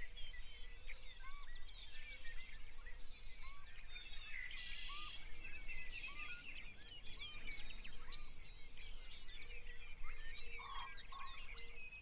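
A chorus of many birds chirping and calling, with a lower call repeating every second or so and a brief buzzy trill about four and a half seconds in.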